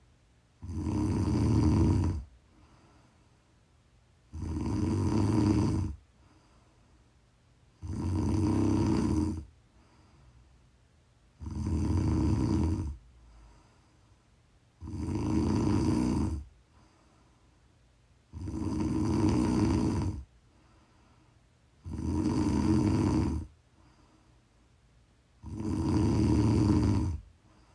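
A person snoring in a steady rhythm: eight loud snores, one about every three and a half seconds, each lasting about a second and a half, with quiet between.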